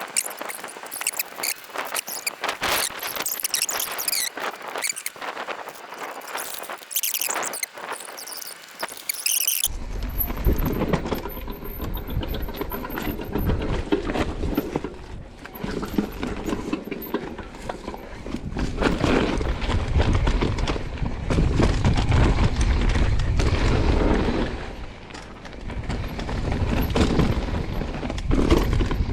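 Mountain bike descending a rough, rocky downhill trail: disc brakes squealing and the bike rattling over rocks. About ten seconds in the sound changes abruptly to a heavy low rumble under the rattle.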